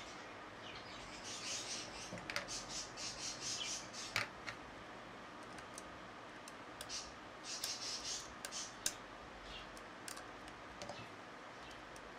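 Small clicks and light scraping of hand tools on a camcorder lens assembly, with a couple of sharper clicks, about four seconds in and near the end, over faint high chirps that come in short bursts.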